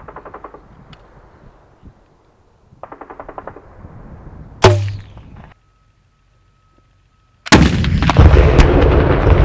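An AT4 84-mm recoilless anti-tank launcher firing, heard about three-quarters of the way in as a very loud blast followed by a long, fading rumble. A shorter, sharp bang comes about halfway through.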